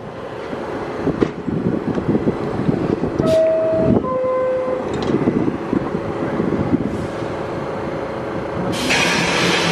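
Subway train standing at the platform, running with a steady low rumble. A two-note chime sounds about three seconds in, and a loud hiss of air starts near the end.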